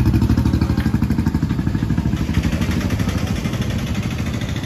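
Auto-rickshaw engine running with a rapid, even putter.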